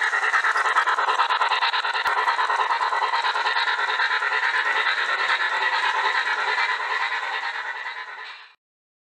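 HO scale Reading T-1 model steam locomotive running on the track under DC power, loud, with a steady dense running noise. The sound cuts off abruptly about eight and a half seconds in.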